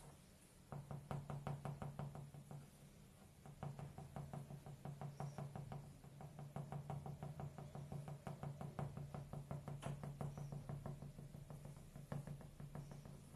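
Fast, even mechanical knocking over a steady low hum, like a small machine running. It starts under a second in, breaks off briefly twice and stops near the end.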